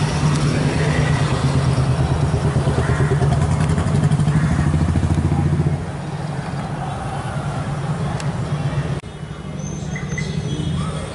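A motor vehicle engine running steadily, a deep even hum that drops in level about six seconds in.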